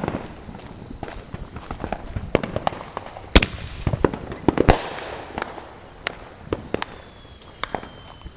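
Consumer fireworks going off: a scatter of sharp cracks and pops, with two loud bangs about three and a half and nearly five seconds in, each followed by crackling. A faint high whistle falls slightly near the end.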